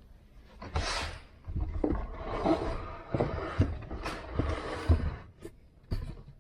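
Wooden boards being handled and fitted together: irregular knocks, thumps and scrapes, with the sharpest knock about five seconds in.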